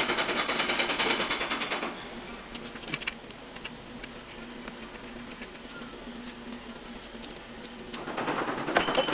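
Rapid mechanical clicking for about the first two seconds, then quieter scattered clicks and knocks. The rapid clicking comes back about a second before the end.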